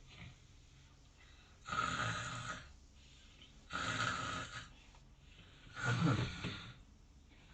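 A woman imitating a man's snoring: three long, noisy snores about two seconds apart, with quiet between them.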